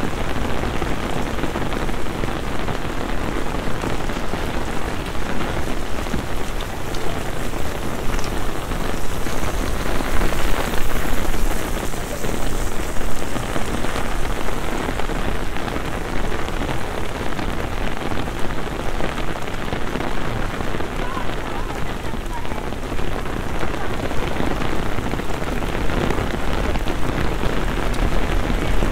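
Heavy rain pouring onto a flooded paved street, a dense steady hiss of drops splashing into standing water, swelling a little about ten seconds in.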